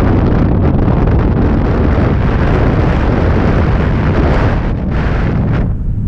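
Rushing air from a paraglider's flight blowing across the camera's microphone: a loud wind hiss over a deep rumble. The hiss drops away just before the end, leaving the rumble.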